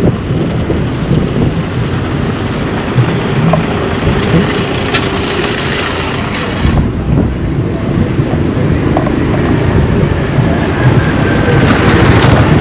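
Road traffic: vehicles driving past close by, a continuous rumble of engines and tyres.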